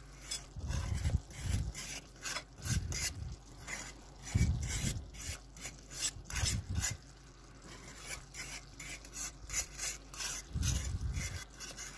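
Metal fork stirring and scraping across the bottom of a frying pan of simmering wine sauce, in quick repeated strokes, with a few low thumps along the way.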